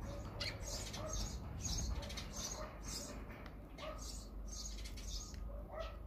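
Eurasian tree sparrows chirping at a seed feeder, short chirps repeating about twice a second.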